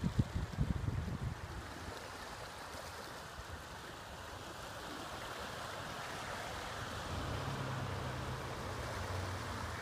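Calm sea washing against a rocky shore, with wind buffeting the microphone in the first second or so. A low steady hum comes in during the last few seconds.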